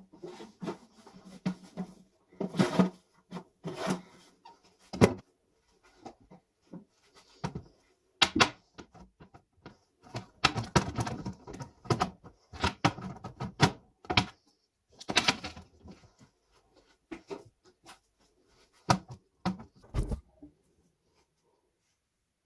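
Containers and kitchen items being handled and set down: an irregular run of knocks, taps and clatters, some loud, that stops about twenty seconds in.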